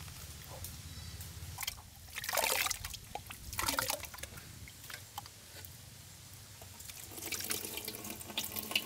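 Pomegranate juice and pulp splashing as it is scooped with a steel tumbler and poured into a strainer over a steel pot. Two louder splashes come a little over a second apart, and a steadier trickle starts near the end.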